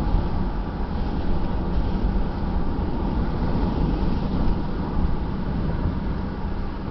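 Steady road and engine noise inside a moving car's cabin, a low rumble with a hiss over it.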